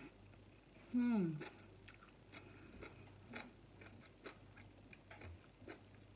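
A person chewing a mouthful of glass noodles with closed lips, making small soft wet mouth clicks. About a second in, a short hum drops in pitch.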